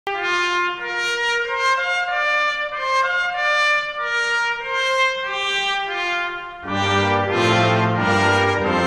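Instrumental music: a single melody line of held notes. Lower, fuller parts join in about two-thirds of the way through.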